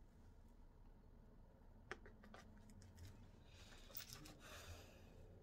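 Near silence with faint handling sounds as a lace frontal is pinned onto a wig head: a single click about two seconds in, then a brief rustle of lace and hair past the middle.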